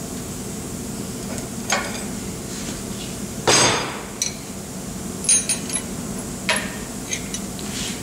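Sharp metallic clinks and knocks of a steel keyway broach and push pin being forced down through an aluminum pulley's bore with a press. The loudest is a ringing clank about three and a half seconds in, followed by a few lighter clinks, over a steady low hum.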